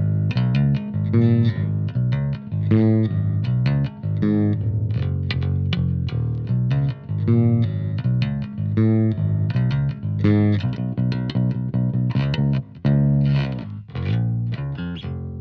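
Fender Mustang PJ electric bass played fingerstyle: a continuous bass line of quick plucked notes, each with a sharp attack, with brief pauses between phrases.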